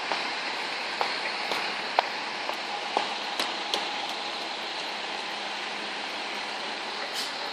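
Steady outdoor street hiss of distant traffic, with footsteps clicking on the pavement about twice a second for the first few seconds.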